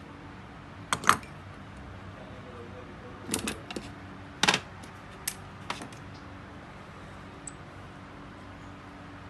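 Small metal clicks and clinks from an alternator's rectifier plate and brush holder being handled and the alternator being moved on the bench. There are two sharp clicks about a second in, a cluster of clinks a few seconds in, and a few lighter ticks after.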